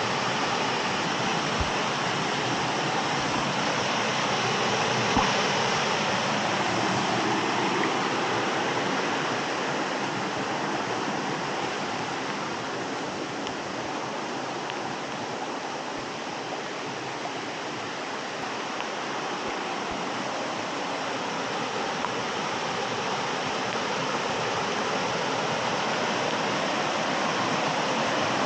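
Water from a small waterfall and stream rushing steadily over rocks, easing a little in the middle and swelling again near the end.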